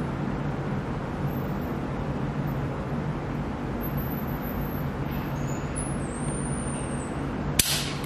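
Steady background hum, then near the end a single sharp metallic click as the Taurus 1911 Officer 9 mm's trigger breaks and the hammer falls under a trigger-pull gauge, at a pull of nearly 7 pounds.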